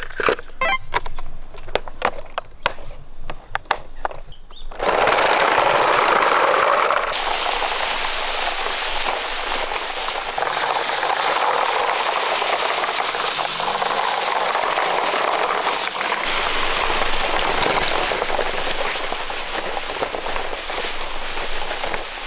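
Die-cast toy cars clicking and knocking against the plastic slots of a toy car-carrier truck case. From about five seconds in, the plastic truck rolls over dry fallen leaves with continuous crunching and rustling.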